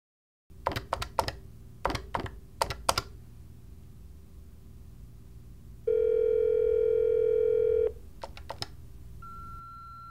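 A telephone call being placed: a scatter of clicks, then one two-second ringing tone heard over the line. A few more clicks and a short higher beep follow as the call goes through.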